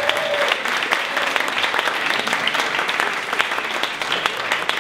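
Live audience applauding after a song, many hands clapping in a dense, steady patter.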